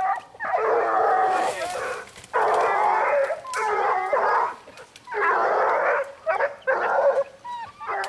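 Pack of young Gascon hounds baying, several voices overlapping in long drawn-out calls about a second each, in repeated bouts with short pauses: hounds giving tongue on wild boar.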